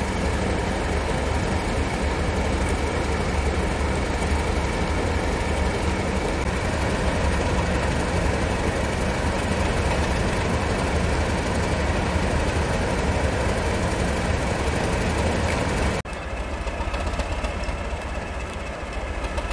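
Class 31 diesel-electric locomotive's engine running steadily with a deep, heavy rumble. About sixteen seconds in, the sound drops to a quieter, steadier engine hum.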